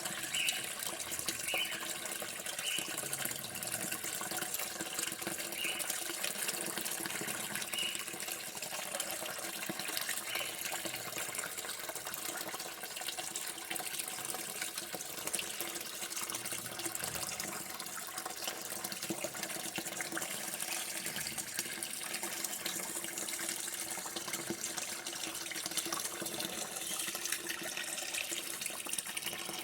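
Water running steadily from a tap into a sink, a continuous even splashing.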